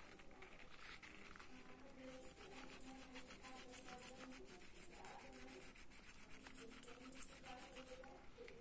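Mechanical pencil lead scratching on paper in many quick, short shading strokes, faint.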